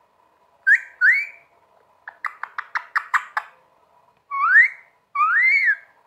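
Rose-ringed parakeet (Indian ringneck) calling: two short rising whistles, a fast run of about eight clipped chirps, then two longer rising whistled calls.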